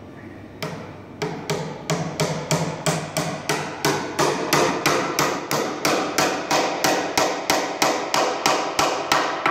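Small hammer tapping rapidly on a Windsor chair's pine seat at the top of a fitted sugar maple leg, about three to four taps a second, each tap ringing briefly. The ring is the sign that the tapered mortise-and-tenon joint is fully tight, the leg and seat resonating together as one piece.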